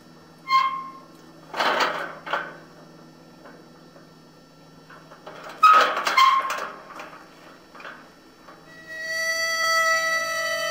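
Sparse dramatic film score: a few short, separate accented hits with ringing tones, then a long held note that starts about nine seconds in.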